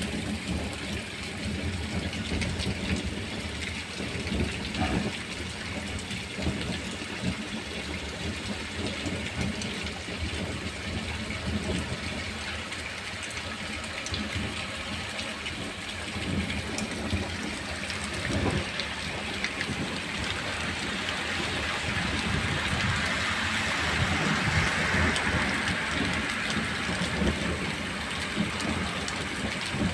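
Heavy summer rain falling steadily on paving and tiled roofs, with a low rumble underneath; the downpour grows a little louder about two-thirds of the way in.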